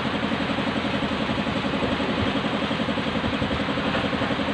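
An engine idling steadily, with a fast, even pulse.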